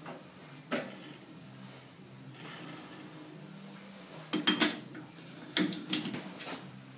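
Sharp metal-on-metal clinks from a four-jaw lathe chuck and its chuck key being handled: one click early, a loud quick cluster of clinks about four and a half seconds in, and more clinks a second later, over a low steady hum.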